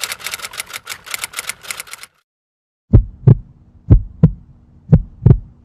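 Sound effects from a news-style animation. First comes rapid typewriter-like clicking, about seven clicks a second, which stops about two seconds in. After a short gap a heavy heartbeat effect starts: three lub-dub pairs, about one a second.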